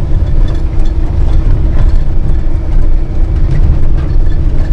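Heavy truck's diesel engine running while the truck is driven, a steady low drone with no change in pitch.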